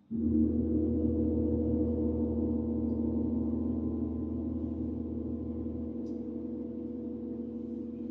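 Gong struck once with a mallet, then ringing with a deep hum and several steady tones that slowly fade; its deepest rumble drops away about six seconds in.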